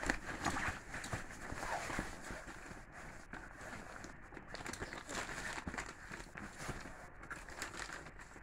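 A puppy tugging and shaking a knotted rope toy on a padded dog bed: scuffling and rustling of fabric and rope, louder and busier in the first couple of seconds, then quieter.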